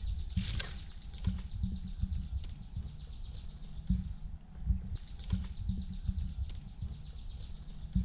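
A calling animal gives a high, fast-pulsing trill in two long spells, with a break about four seconds in, over low knocks and rumbling.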